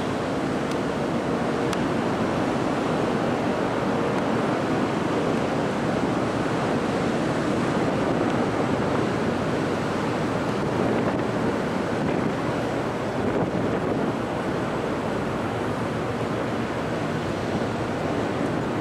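A car ferry's diesel engines run with a steady drone as black smoke pours from the funnel, mixed with wind buffeting the microphone.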